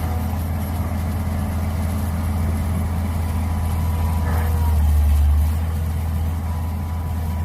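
Mini excavator's engine running steadily with a low hum; it grows louder for about a second around the middle, then settles back.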